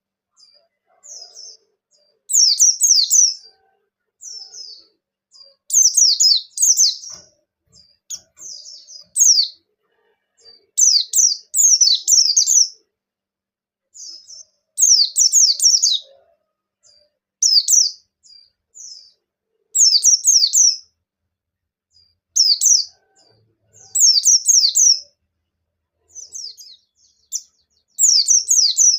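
Pleci bustomi white-eye singing: bursts of rapid high twittering phrases, each about a second long, repeated every two to three seconds with short pauses between.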